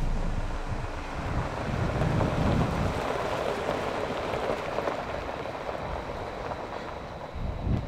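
Jeep Gladiator running as it rolls slowly, heard from outside, mixed with an uneven rushing noise.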